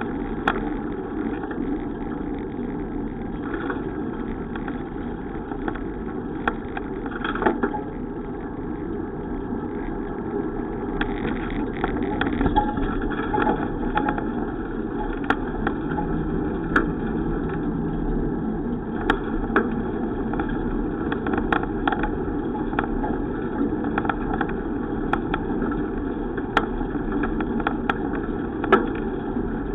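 Riding noise from a bicycle on the move: a steady road-and-wind noise with scattered sharp clicks and rattles.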